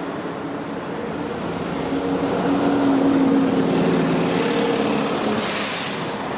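Electric multiple-unit train moving through the station. Its traction motors hum in several steady tones that swell to their loudest about three seconds in, then fade. A sudden hiss about five seconds in lasts about a second.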